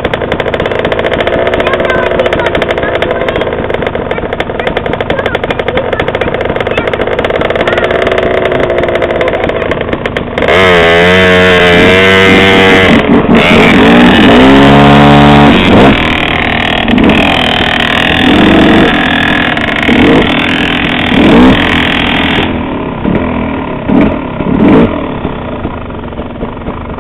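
KTM 50 two-stroke dirt bike engine running at low revs, then revved up and down hard several times about ten seconds in, followed by short throttle blips as the bike moves off.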